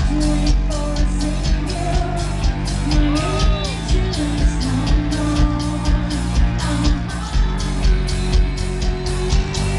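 Metal band playing live through a loud PA: a female lead voice sings a melody with held notes over distorted electric guitar, bass and a steady drum beat.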